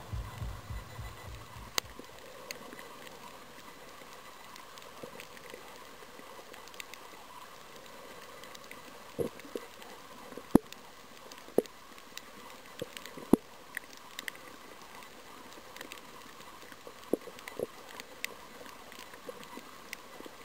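Faint underwater reef ambience: a steady hiss with scattered sharp clicks and pops, a few of them louder in the second half. A low throbbing fades out in the first two seconds.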